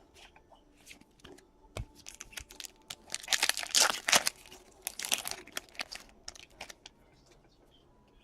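Trading card pack wrapper being torn open and crinkled by hand. The tearing and crinkling is loudest from about three to four and a half seconds in, with smaller crackles around it.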